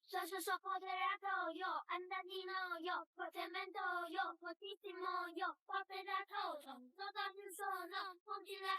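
Background music: a high, child-like voice singing a Mandarin pop song, with no instruments standing out.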